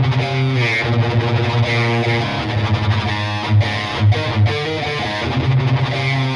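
B.C. Rich Virgo electric guitar played with a distorted tone: a riff of heavy low notes and chords, with a few sharper accented hits in the middle.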